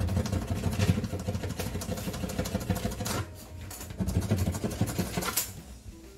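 A rag scrubbing hard along the rim of a countertop sink cutout, in two bouts of quick rubbing with a short break about three seconds in.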